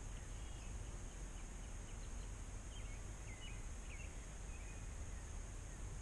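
Quiet field-edge ambience: a steady low rumble and hiss, with a few faint short bird chirps in the first half.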